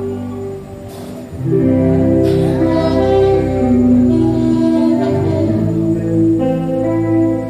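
A live band playing a song with guitar. The music swells louder about a second and a half in.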